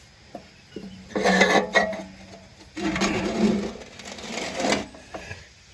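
Scraping and knocking of a heavy tractor battery being worked back into its battery box, in two stretches a second or so apart.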